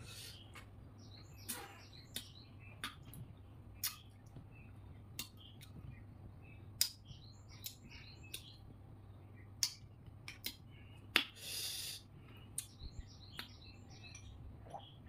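Close-up eating sounds of a person spooning up and eating yogurt: sharp wet mouth clicks and lip smacks about once a second, with small ticks between them and one longer noise lasting just under a second about eleven seconds in.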